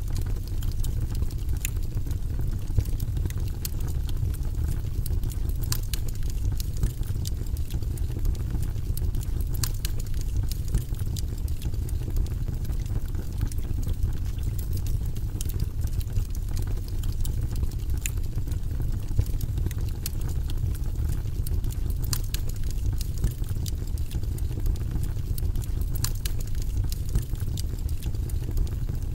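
Wood fire burning in a fireplace: a steady low rush with scattered sharp crackles and pops from the burning wood.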